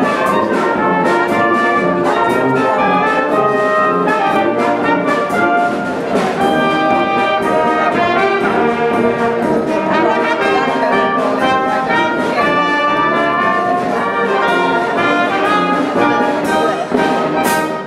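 Brass-heavy music with a steady beat, trumpets and trombones playing a fast melody.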